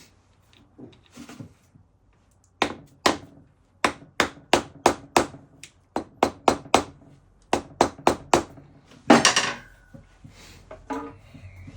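Hammer tapping on motorcycle engine parts: a run of sharp taps, about three a second in short groups, followed by a louder clatter a little after the middle and a few faint knocks.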